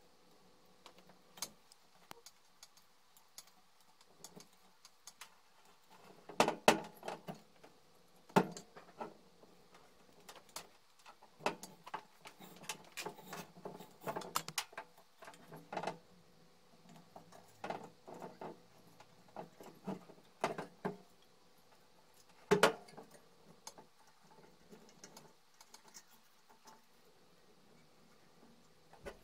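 Irregular metal clicks, clinks and knocks as a lawnmower-blade lamp's metal base and reel are handled on a steel workbench while the lamp flex is threaded and a screwdriver works inside the base. A few sharper knocks stand out, the loudest about six and a half seconds in and again about twenty-two seconds in.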